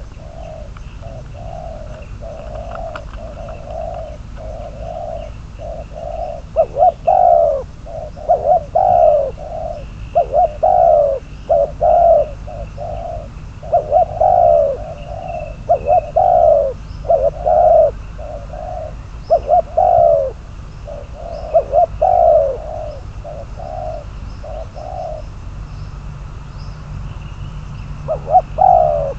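Spotted dove cooing in a long run of repeated low phrases, the louder notes gliding downward. The cooing pauses for a few seconds near the end, then starts again.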